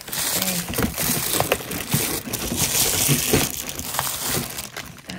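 Clear plastic wrapping crinkling and rustling as cordless phone handsets sealed in it are handled, with small clicks through the rustle. It is loudest for the first few seconds, then eases off.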